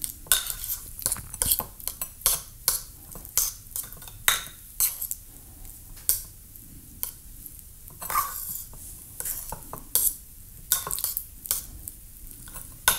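Knife clicking and scraping against a small bowl while cutting softened butter into little bits, in irregular sharp taps a few times a second.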